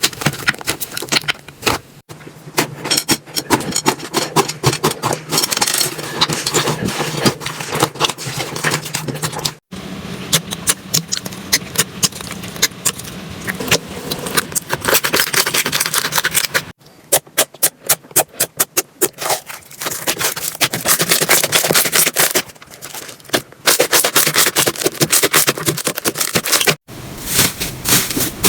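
Slime being squeezed and poked by hand, making dense crackling and popping clicks. The sound breaks off abruptly several times as one clip cuts to the next, with a quick, even run of clicks a little after halfway.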